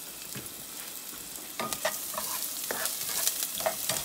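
Diced onion sizzling in oil in a nonstick saucepan. About a second and a half in, a spoon starts stirring and scraping against the pan, and the sizzle grows louder.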